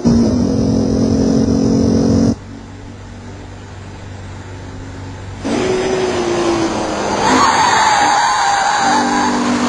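Car engine running at a steady pitch, heard onboard, cut off abruptly after about two seconds; after a quieter stretch, a car on the track returns with a wavering tyre squeal a little past the middle.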